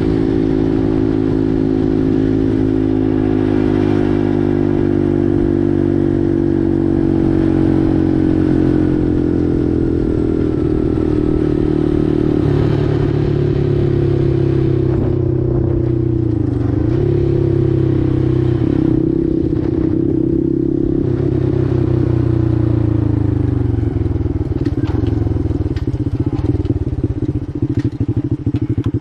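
Four-wheeler (ATV) engine running steadily under way, its pitch easing slowly down over the first several seconds and dipping briefly about halfway through. A few sharp clicks come near the end.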